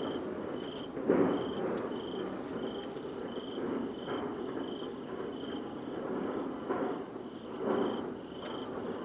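A loud, unexplained rumbling drone that swells and fades unevenly, loudest about a second in. It is the noise the recordist hears coming from the sky to the east. Over it an insect chirps steadily about twice a second.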